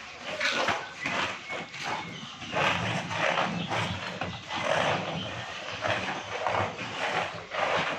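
Children's inline skate wheels rolling and scraping on a rough concrete floor, in uneven strokes with a low rumble as they glide.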